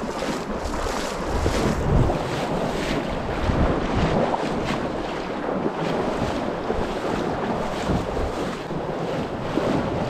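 Shallow river water rushing and splashing around a capsized kayak and the people wading beside it, with gusts of wind buffeting the microphone.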